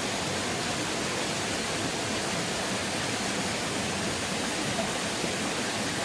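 Rocky mountain stream rushing over stones in a steady, unbroken rush of water.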